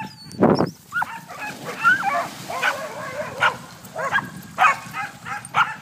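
Several dogs yipping and whining excitedly, over and over, in short rising and falling cries. A loud thump comes about half a second in.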